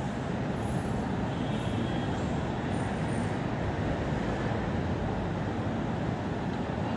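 Steady low rumble of metro station background noise, even throughout with no single event standing out.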